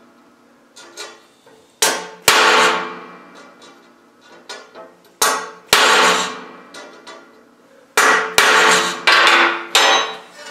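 Hammer blows on a cold chisel held against a 1/8-inch mild steel bar, cutting a guide line in the cold metal. About eight sharp, ringing metallic strikes, mostly in pairs, with light taps between them as the chisel is moved along the line.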